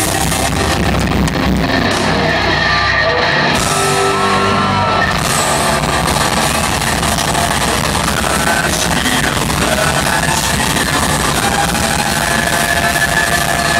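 Live rock band playing loudly in a large hall, with singing and yelling voices over the guitars and drums.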